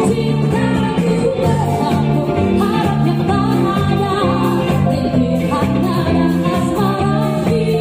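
Live pop band playing through stage speakers: singing over electric bass, electric guitar, keyboard and drums, with a bass line stepping from note to note.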